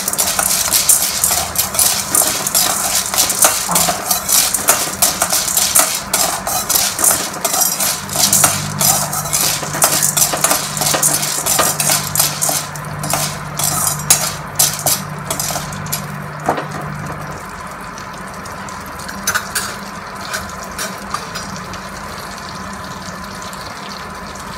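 Steel spoon stirring and scraping popcorn kernels in butter and oil around a stainless steel kadai, the kernels clicking against the metal. The stirring stops about two-thirds of the way through, leaving a quieter steady sizzle of the kernels heating in the fat.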